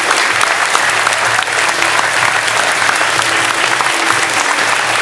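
Large audience applauding steadily, dense continuous clapping.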